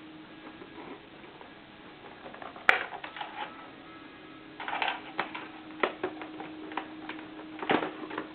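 Small toy turntable running: a steady hum with scattered clicks and crackles, and one sharp click a little under three seconds in.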